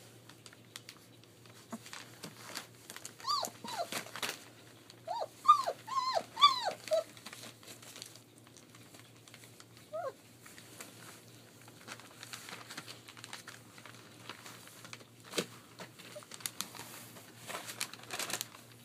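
Three-week-old German Shepherd puppy whimpering in short, high, arching cries: a couple about three seconds in, a quick run of them between five and seven seconds, and one more near ten seconds. Newspaper bedding crinkles under the puppies throughout.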